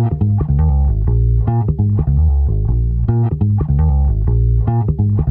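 Background music: a stripped-down passage of plucked bass and guitar notes, without drums or cymbals.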